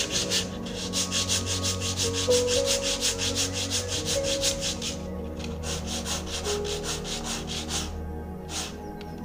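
A small wooden block is rubbed back and forth by hand on a coarse perforated sanding disc, making quick rasping strokes several times a second. The strokes break off briefly about five seconds in and again near the end.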